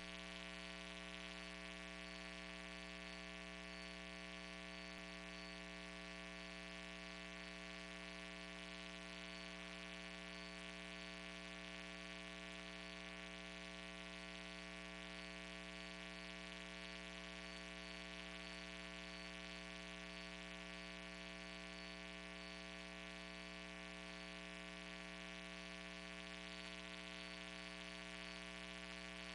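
Steady, faint electrical mains hum with a ladder of overtones over light hiss, unchanging throughout.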